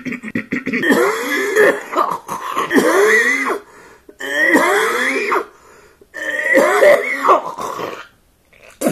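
Throaty vocal noises: a run of quick rhythmic grunts, then three long bursts whose pitch slides up and down, and a short grunt near the end.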